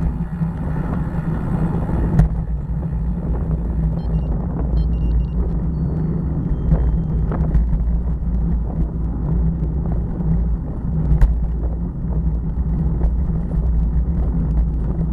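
Wind buffeting the microphone of a bicycle-mounted camera while riding, with steady road rumble from the tyres on rough, cracked pavement. Two sharp knocks, about two seconds in and about eleven seconds in.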